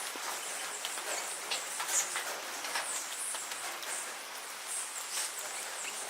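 Small feeder birds giving short, high chirps and ticks at irregular intervals over a steady background hiss.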